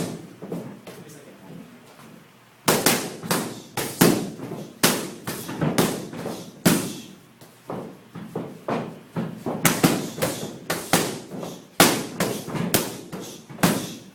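Boxing gloves striking focus mitts in fast combinations: one sharp smack at the start, then from about three seconds in a steady string of punches landing two to three a second, each a crisp slap with a little room echo.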